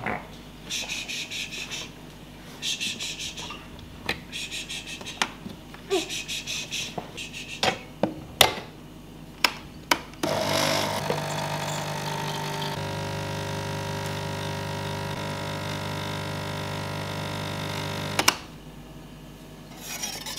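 A De'Longhi espresso machine's pump runs with a steady hum for about eight seconds while brewing coffee into the cup, then shuts off with a click. Before it there are a few clicks and knocks and short hissing rustles.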